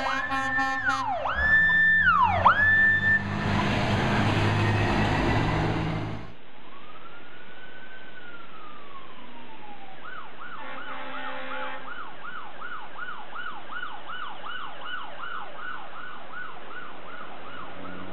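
Fire engine sirens. Repeated rising and falling sweeps give way to a loud rush of truck noise about three seconds in. After a cut comes one slow wail, then a fast yelp of about two to three cycles a second, with a short horn blast near 11 seconds.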